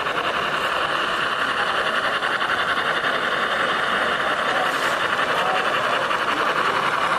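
N scale model train running along the layout's track, a steady fast rattle of wheels on rail and the locomotive's small motor.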